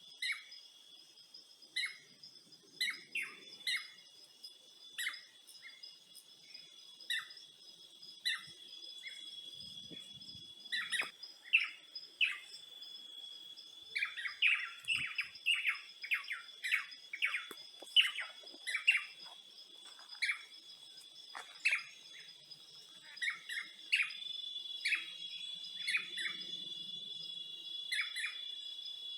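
Birds chirping in many short, quick calls, busier around the middle, over a steady high-pitched insect trill.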